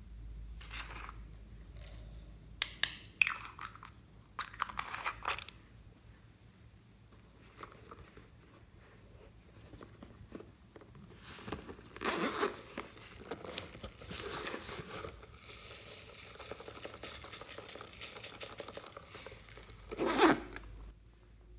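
Close-miked handling sounds of a squishy toy ball and a red silicone pouch being opened: crackling, scraping and rustling in bursts, with a few sharp clicks early on and the loudest burst near the end.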